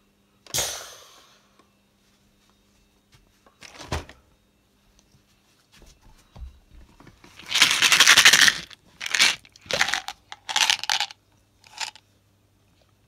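A toy foam-dart blaster fires once, a sharp pop with a short fading hiss, followed by a thump. Then comes a run of loud rough crunching and rustling bursts, the longest about a second, as a shark hand puppet goes at a plastic gum bottle.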